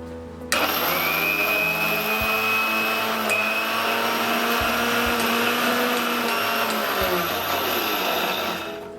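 Electric mixer grinder dry-grinding a spice powder blend for kadha: the motor starts abruptly about half a second in, runs steadily with a high whine, then winds down and stops near the end.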